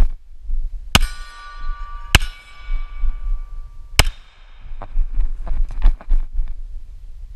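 HK USP Tactical 9mm pistol fired three times, about a second in, a second later and about four seconds in, with a fourth shot right at the end. After each of the first two shots a steel target rings for about a second. Between shots there is a low rumble and light thuds from running with a body-worn camera.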